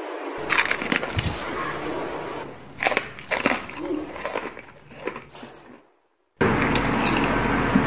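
Close-mic eating sounds: crunchy bites and chewing of crispy fried chicken and roast pork skin, in scattered sharp crackles. About six seconds in the sound cuts out entirely for a moment, then steady background music starts.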